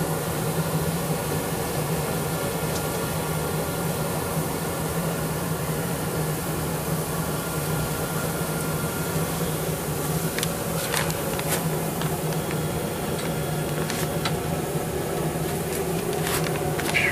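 Propane gas forge running with a steady hum. A few light metallic clinks come in the second half.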